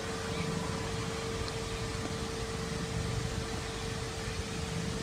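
Steady hiss with a constant mid-pitched hum and a low rumble underneath, unchanging throughout.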